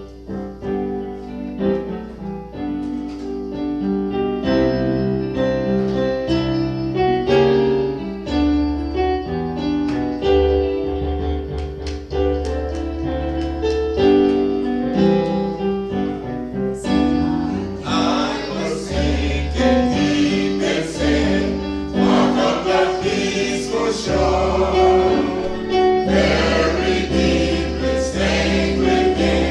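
Gospel music: keyboard with a steady bass line, and choir singing that grows fuller and brighter from about seventeen seconds in.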